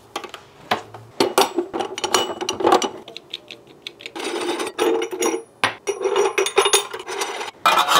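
Stainless steel meat grinder head and grinding plate being fitted onto an electric meat grinder: a run of metal clicks and knocks with some scraping as the parts are slid and seated together.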